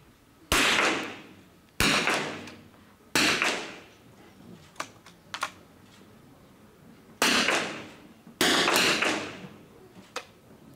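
Smallbore .22 rimfire target rifles firing five single shots, three about a second and a half apart and then two more after a pause, each a sharp crack with a tail of echo in the indoor range hall. A few faint clicks come between the shots.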